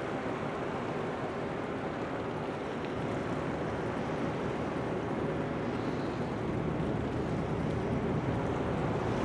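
A research ship's engine running with a steady hum, under wind and water noise.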